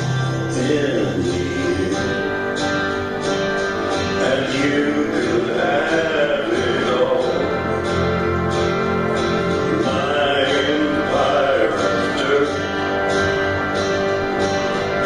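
A boy singing while strumming a small acoustic string instrument, played live as a solo song with a steady strummed rhythm.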